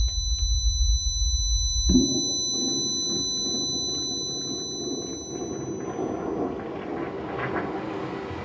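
A low rumble under several steady high ringing tones, cut off abruptly about two seconds in by the rushing water of a toilet being flushed. The rushing carries on while the ringing tones fade out.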